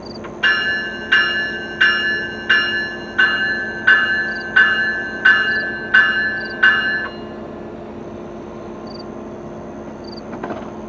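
Railroad bell ringing: about ten clangs roughly 0.7 s apart that stop about seven seconds in, with crickets chirping faintly underneath.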